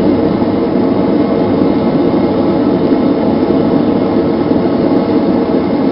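Blowerless gas forge burner running with a steady, even roar.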